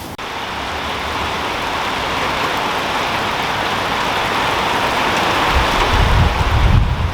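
Steady rain falling, a dense even hiss that grows slowly louder, with a low rumble near the end.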